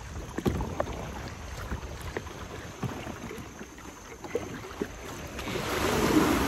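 Shallow seawater lapping at a kayak hull with scattered small splashes and knocks, then, about five and a half seconds in, a small wave breaks and washes around the kayak.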